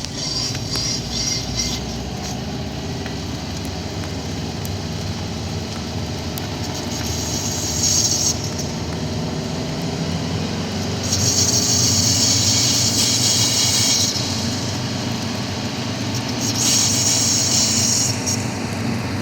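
Subaru WRX driving, with steady road and engine noise and a high-pitched brake squeal from the left rear corner that comes in three times, longest about midway through. The squeal happens with the brakes off, only when turning right.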